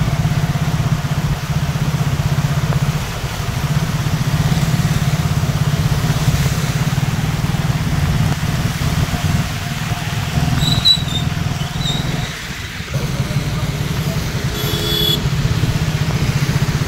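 Motorcycle engine running steadily close to the microphone, with an even wash of rain and tyre spray over it. A brief beep sounds near the end.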